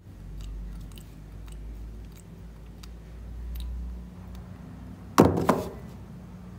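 Two sharp knocks on a tabletop about a third of a second apart, as a green toy snake is dropped onto it and bounces, over a low steady hum.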